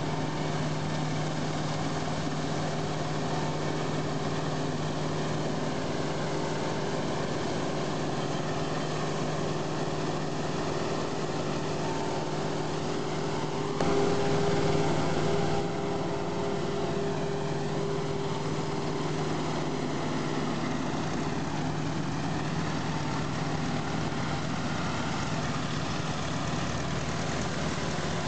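Claas forage harvester running steadily while chopping maize, with the tractor hauling the trailer alongside, a continuous engine drone with a low hum. It gets briefly louder for about two seconds roughly halfway through.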